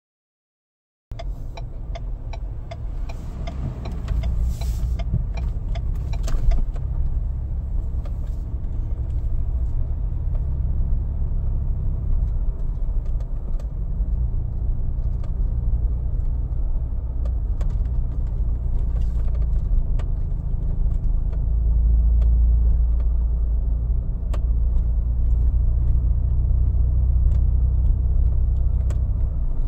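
Steady low rumble of a moving car, with scattered light clicks and rattles; it starts abruptly about a second in.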